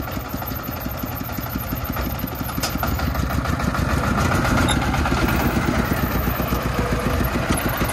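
Công nông three-wheeled dump truck's single-cylinder diesel engine running with a steady, rapid clatter, growing a little louder partway through as the truck pulls forward with its tipper bed still raised.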